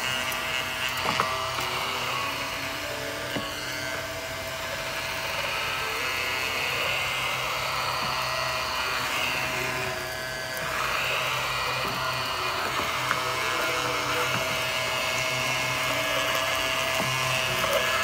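Mini desktop vacuum cleaner running with a steady high-pitched motor whine, dipping briefly a little past halfway. Light background music plays underneath.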